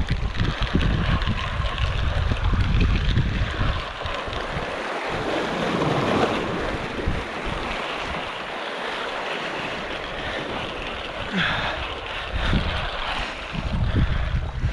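Sea waves washing and breaking against rocks just below, with gusts of wind buffeting the microphone in the first few seconds and again near the end.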